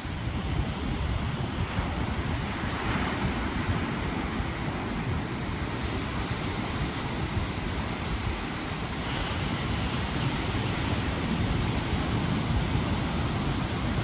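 Ocean surf from a typhoon swell, waves breaking and washing in a steady rush, with wind buffeting the microphone.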